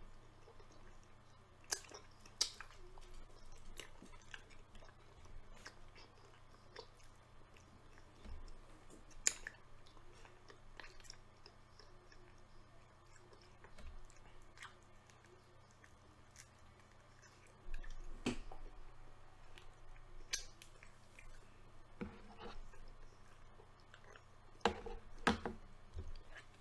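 A person chewing food close to the microphone, with scattered sharp clicks from the mouth; the loudest come about nine seconds in, around eighteen seconds and in a cluster near the end.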